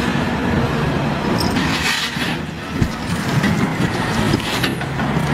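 Caterpillar 992K wheel loader's diesel engine running steadily under load as it pushes a large boulder, with a single sharp knock about three seconds in.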